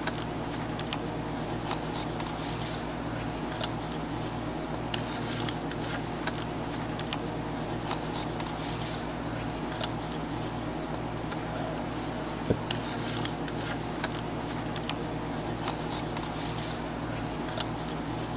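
Light taps and clicks from pastry dough being pressed by hand into the cups of a metal muffin tin, over a steady machine hum.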